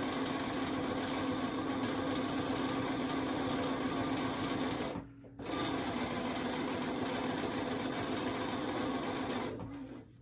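Bernina sewing machine running steadily as it stitches binding through its binder attachment. It stops briefly about halfway, starts again, and stops near the end.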